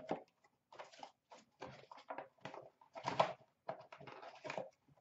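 Small cardboard box being opened by hand: flaps pulled open and the inner box worked out, a run of short, irregular rustles and scrapes, with a louder scrape about three seconds in.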